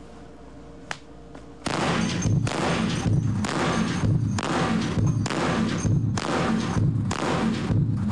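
A Barrett M107 .50-calibre semi-automatic rifle firing in rapid succession, about one and a half shots a second, starting a little under two seconds in, each shot ringing on into the next.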